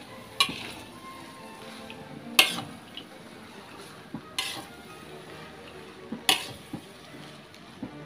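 Metal spatula stirring fried noodles in a large metal wok, scraping and clanking against the pan, with four sharp clanks about two seconds apart.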